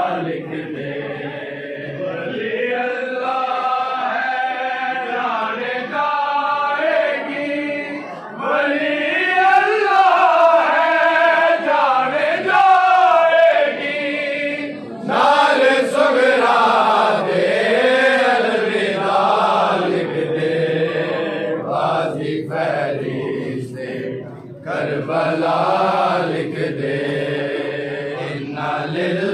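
Men's voices chanting a Shia lament (noha) together: a slow melodic chant in long phrases with wavering, drawn-out notes and brief breaks between phrases.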